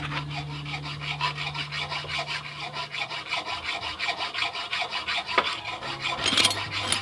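A hand tool rasping against a part in quick, even, repeated strokes.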